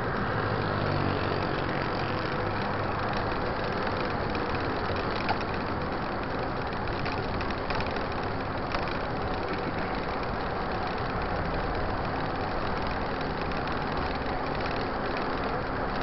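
Steady road and traffic noise heard from a moving bicycle on a city avenue, with nearby car engines, and a couple of brief clicks about five and nine seconds in.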